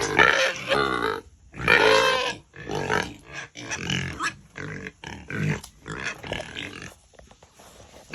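Pigs grunting and squealing in short, irregular calls, with a loud squeal about two seconds in, and quieter grunts near the end.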